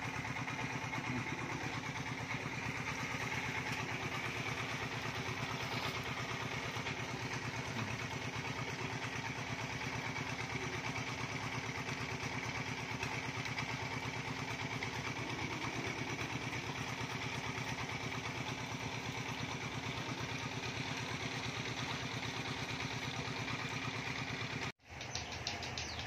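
A small engine idling steadily close by, with an even rapid pulse; it cuts off abruptly near the end.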